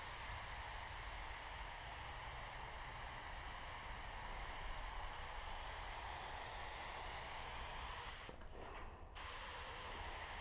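Steady air hiss of a gravity-feed paint spray gun laying down a coat of paint, with the trigger let off briefly about eight seconds in before spraying resumes.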